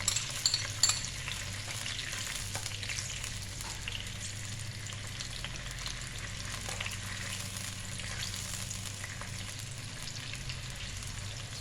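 Tauco sauce of fried aromatics and water sizzling and bubbling in a pan on the stove, with a utensil clicking against the pan a few times in the first second.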